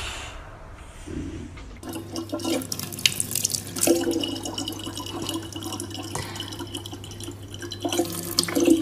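A thin stream of tap water running from a faucet and splashing onto a cat's head and into a plastic cup, starting about two seconds in after a quieter stretch.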